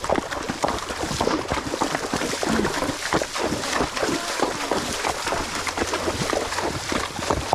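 Horses' hooves splashing through shallow water, a dense run of irregular splashes.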